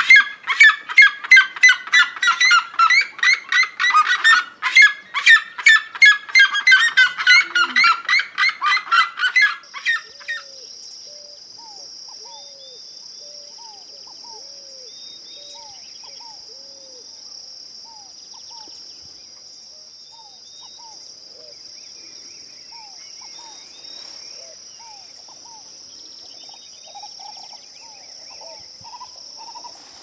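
Two red-legged seriemas calling together: a loud, rapid series of yelping cries that cuts off about ten seconds in. After that, a steady high buzz of insects with scattered faint bird calls.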